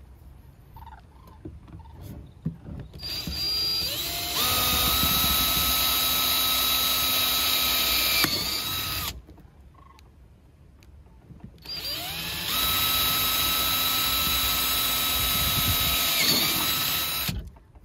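Cordless drill with a 1/4-inch bit drilling holes through a motorcycle saddlebag's lower trim. It runs twice: each time it winds up to a steady whine, holds for several seconds, then stops.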